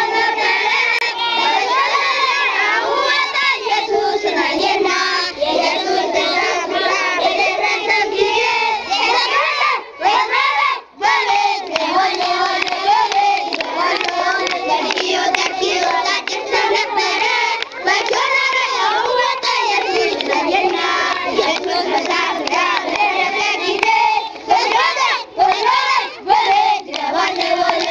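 A large group of children singing together, with hand clapping. The singing breaks off briefly about ten seconds in, then carries on.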